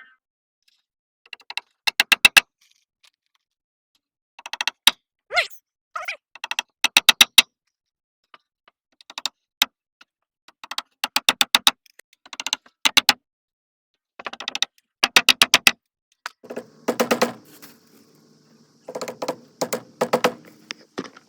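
Short runs of sharp, rapid clicks, about ten a second, each run lasting under a second and recurring every second or two, with silent gaps between.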